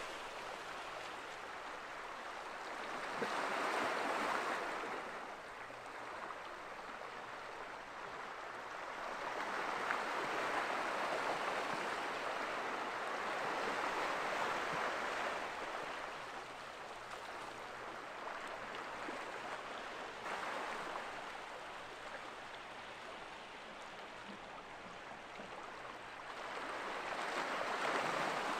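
Small sea waves washing onto a rocky shore: a soft rushing hiss that swells and fades several times.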